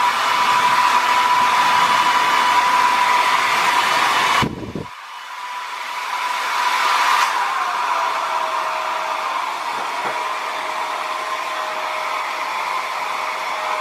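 Conair Vagabond 1875 W dual-voltage travel hair dryer running on its high setting, a steady rush of air with a whine. About four and a half seconds in the sound cuts out suddenly, then builds back up and settles a little quieter with a lower-pitched whine.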